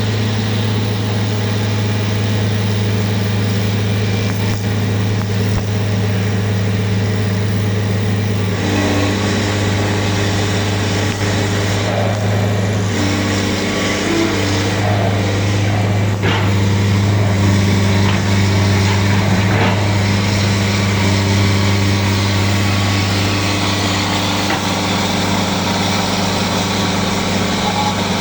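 An engine running steadily with a constant low hum. About a third of the way in, a rougher, noisier layer joins it and carries on to the end.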